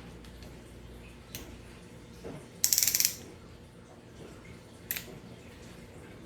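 Small screwdriver with a Torx bit being worked on a headset's tiny screws: a couple of sharp clicks and, about halfway through, half a second of rapid ticking.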